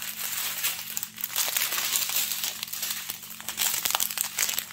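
Small clear plastic bags of diamond painting drills crinkling and rustling as they are handled and pulled apart.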